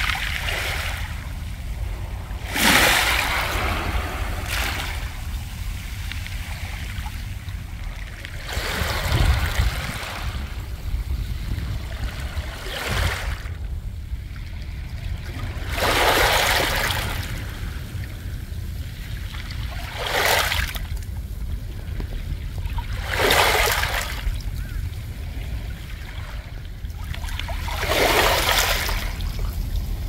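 Small waves washing up and draining back over a beach of smooth round pebbles (mongdol), the stones rolling and rattling against each other in a hissing surge about every four to seven seconds, six times in all. A steady low rumble runs underneath.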